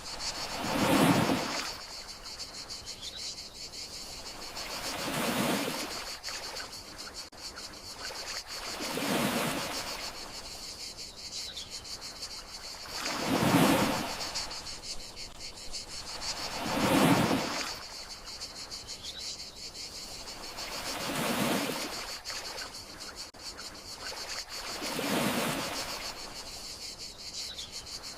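Gentle sea waves washing in, a soft rushing swell about every four seconds, under a steady high-pitched chirring of crickets.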